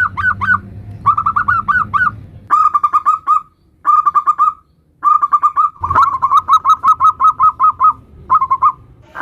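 Zebra doves (perkutut) singing the fast, stuttering 'nutut' coo: runs of short, quick notes, about six to eight a second, repeated in several phrases with brief pauses between them.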